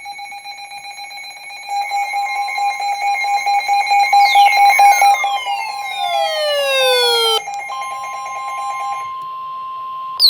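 Emergency alert tones ahead of a severe thunderstorm warning. A rapidly pulsing electronic alarm of several steady high tones is joined midway by a cluster of falling tones. After about seven and a half seconds it gives way to a single steady tone of about 1 kHz, and a brief loud falling chirp comes at the very end.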